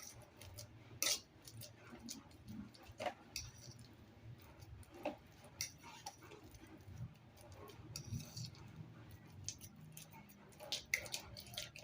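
Fork clicking and scraping against a bowl while mashing ripe bananas: faint, irregular ticks and taps spaced a second or two apart.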